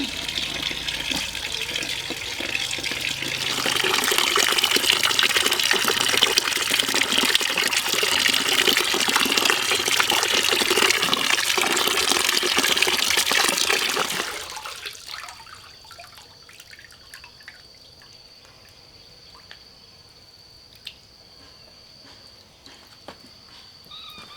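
Running water pouring and splashing, growing louder a few seconds in, then stopping about fourteen seconds in. Afterwards only a faint steady high-pitched whine and a few small clicks.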